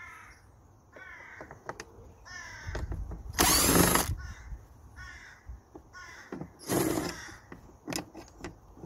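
Cordless drill-driver with a T27 Torx bit spinning in two short runs, about three and a half and seven seconds in, backing out the screws of an air filter housing lid. A bird calls repeatedly between the runs.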